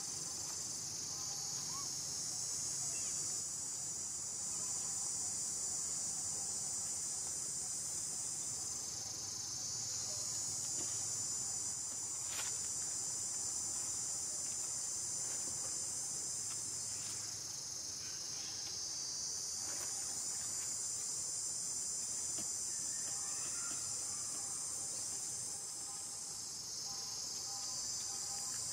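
Insect chorus: a steady, high-pitched drone that slowly dips and swells.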